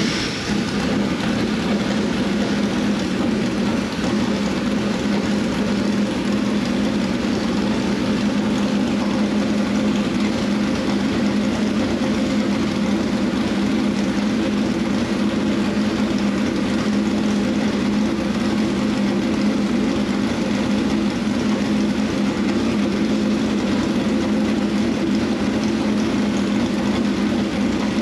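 Dirt late model race car's Ford V8 idling steadily and loudly. It is being run to circulate fluid through freshly changed power steering lines.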